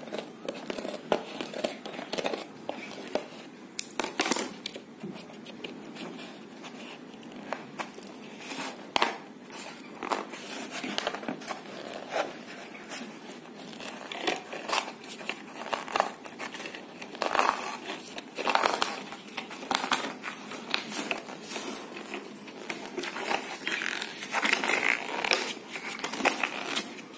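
Old varnished painted canvas being cut and torn by hand: an irregular run of crackling, ripping and snipping noises with many sharp clicks.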